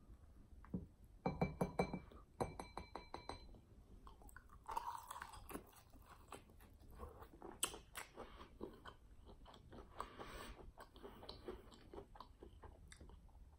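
Close-miked eating of crispy fried chicken wings: two quick runs of sharp crunching bites, then quieter chewing.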